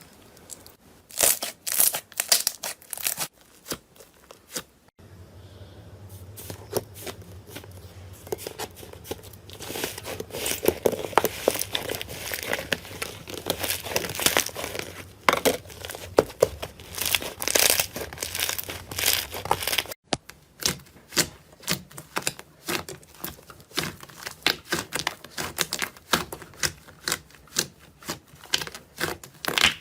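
Slime being handled and squished, giving dense quick crackles, pops and clicks, in three stretches that break off abruptly about five and twenty seconds in.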